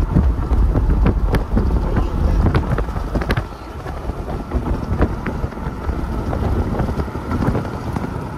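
Car cruising at highway speed: a steady low rumble of wind and road noise, with a few short clicks.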